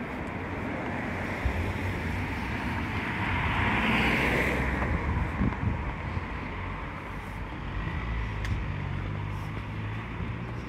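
Street traffic: a car drives past, its tyre and engine noise swelling and fading about four seconds in, over a low rumble of wind on the microphone.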